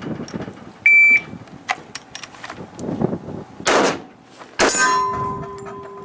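An electronic shot timer beeps once, briefly, about a second in to start a draw-and-fire drill. After a short rushing noise, a single pistol shot cracks near the end and hits a steel target, which rings on with a steady tone.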